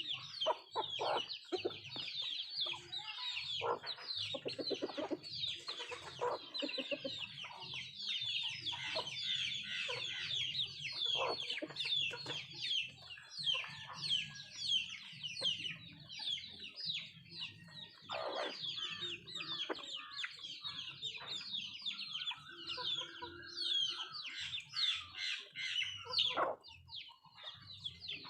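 Flock of nattu kozhi (Indian country chickens) clucking, with a constant stream of high chirping over the lower clucks and a drawn-out call a little after twenty seconds.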